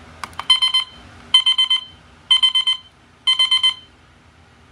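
ROCAM digital mirror alarm clock sounding its alarm: four bursts of quick high beeps, about one burst a second, after a couple of clicks from its buttons.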